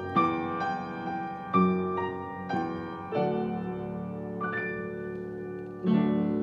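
Yamaha upright piano played by hand: a slow run of struck chords left to ring, a long held chord from about three seconds in, and a loud chord struck near the end and left sounding.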